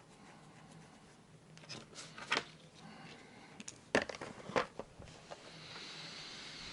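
A few light clicks and knocks of small parts and tools being handled on a workbench, then a faint steady hiss near the end.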